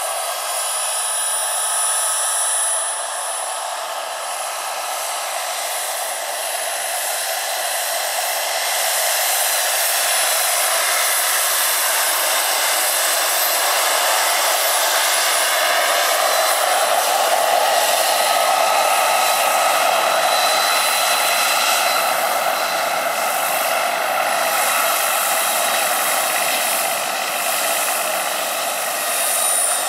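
Jakadofsky Pro 6000 model gas turbine of a large RC Gazelle helicopter running with a steady high whine and the rush of the spinning main rotor. It grows louder and fuller about halfway through as the helicopter comes close.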